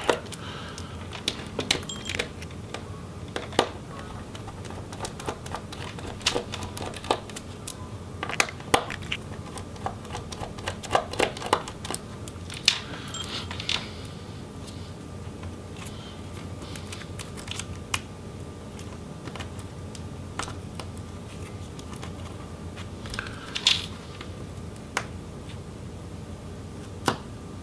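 Small Phillips screwdriver working tiny laptop screws out of a metal palm rest: scattered light metallic clicks and taps in irregular clusters, as the bit seats and the loosened screws are handled.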